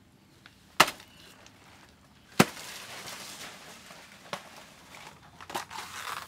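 Two sharp chops of a curved knife into a banana plant's pseudostem, about a second and a half apart, the second followed by a lingering rustle. Near the end, a rougher tearing and scraping as fibrous layers of the cut stem are stripped off.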